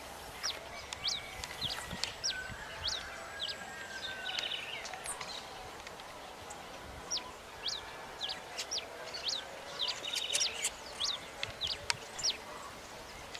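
Birds calling outdoors: many short, high, quick chirps repeating throughout, with a couple of brief buzzy trills, over a steady faint background hiss.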